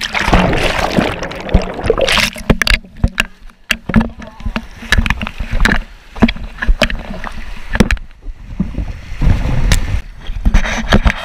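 Breaking surf rushing and splashing around a plastic sit-on-top kayak as it is tipped over in the waves, with many sharp knocks throughout. The rush is heaviest at the start and again near the end.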